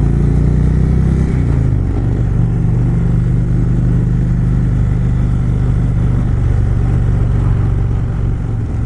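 2018 Indian Springfield motorcycle's Thunder Stroke 111 V-twin engine running steadily while riding. Its note drops slightly about a second and a half in, then holds even.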